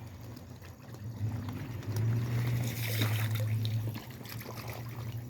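Pond water pouring and trickling out through an opened drain, over a steady low rush that swells louder between about one and four seconds in.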